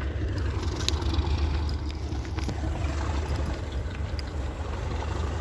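Low, steady rumble of a diesel locomotive engine idling.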